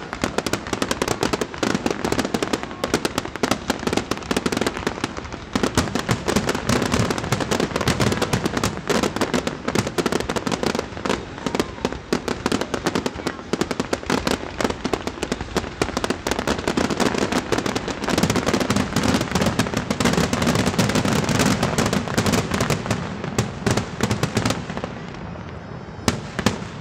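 Fireworks finale: an unbroken barrage of rapid firework launches and shell bursts, thinning out near the end.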